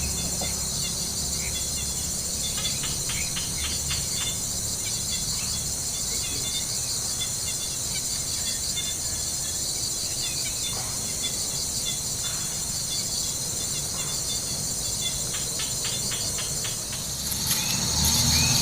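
Steady, high-pitched chorus of crickets and other insects trilling continuously. Near the end, a louder, faster-pulsing sound joins in.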